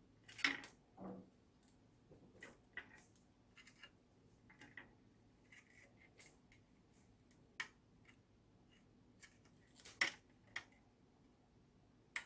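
Scattered faint clicks and light taps of small tools and parts being handled during an LED light repair, with two sharper clicks, one about half a second in and one about ten seconds in.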